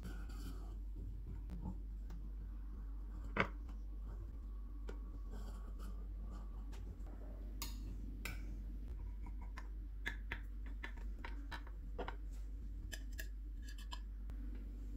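Metal kitchen knife cutting through soft, milk-soaked cake in a glass baking dish, with scattered light clicks and taps of the blade against the glass, the sharpest about three and a half seconds in and a run of them near the end as a slice is lifted out.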